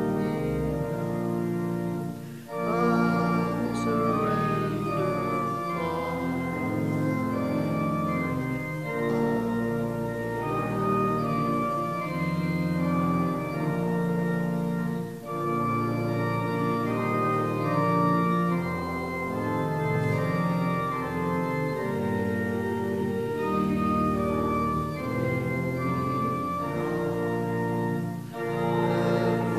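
Organ playing a hymn in held chords, phrase by phrase, with short breaks between phrases about two and a half seconds in, near the middle, and near the end.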